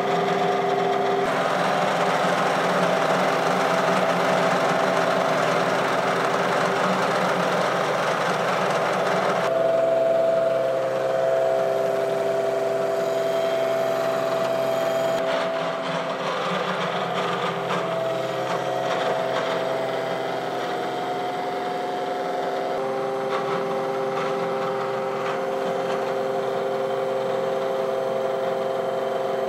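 Indexable face mill on a milling machine cutting through A2 tool-steel TIG weld buildup on a hardened steel rack: a steady machining noise with a held hum of several tones, shifting abruptly in pitch and loudness about ten and again about fifteen seconds in.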